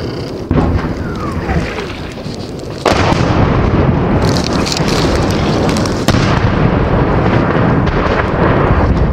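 Dense, loud rumble of explosions, with sudden louder blasts about half a second, three seconds and six seconds in.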